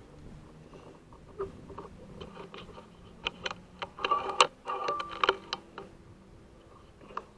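Irregular light clicks and knocks, handling noise from the air rifle and its scope-mounted night-vision camera, bunched together and loudest from about three to five and a half seconds in.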